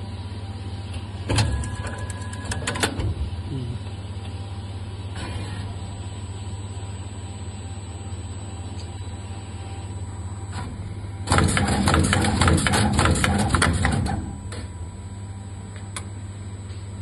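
Automatic PCB component insertion machine working, with a steady low hum under it. About a second in comes a short run of sharp mechanical clicks, then a few single clicks, and from about eleven to fourteen seconds in a louder, dense run of rapid clicking and clattering as the insertion head works.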